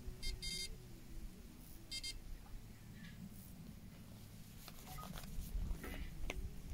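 Short high-pitched electronic beeps: a quick pair at the start and one more about two seconds in, followed by a few faint clicks and knocks.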